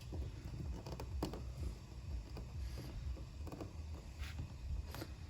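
Faint handling noise as adhesive protective film is lifted and pressed back onto a car's marker light: a few soft, scattered ticks over a low steady rumble.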